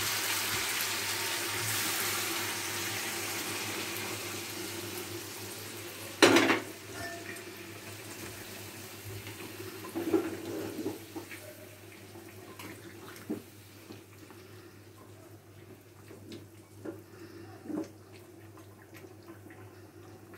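Hot water poured into a metal pan of chicken curry frying in its own released oil, hissing and sizzling loudly at first and dying down over the first few seconds. A metal spatula clanks sharply against the pan about six seconds in, followed by a few lighter knocks as the curry is stirred.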